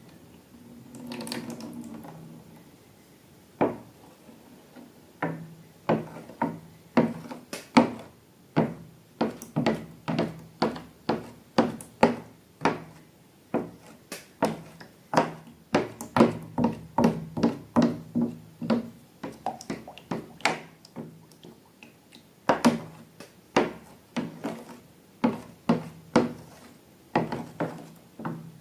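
Irregular series of short clicks and taps, one or two a second, from hands working slime and the containers it is made in.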